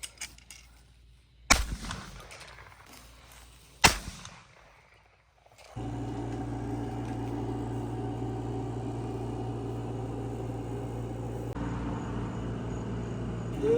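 Two shotgun shots about two and a half seconds apart, each followed by a short echo. About six seconds in, a steady low hum with a few held tones starts up and runs on.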